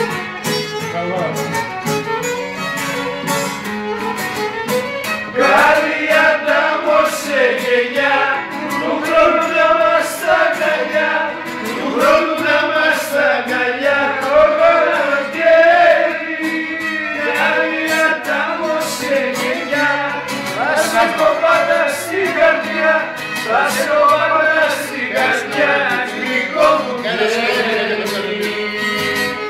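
Live violin playing a Greek folk melody over a strummed laouto accompaniment, in an instrumental passage between sung verses.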